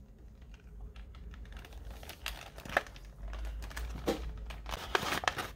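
Plastic doll packaging crinkling and clicking as it is handled. It is faint at first, then irregular crackles grow busier from about two seconds in.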